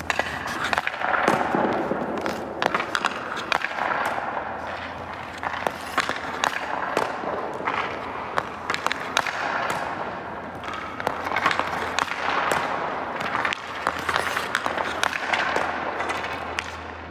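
Hockey sticks cracking against pucks and pucks smacking into boards and net in irregular sharp hits, with skate blades scraping the ice between them. A steady low hum runs underneath.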